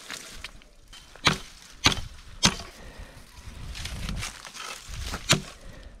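Dry dead branches and twigs snapping with sharp cracks, four times, amid rustling of dry brush.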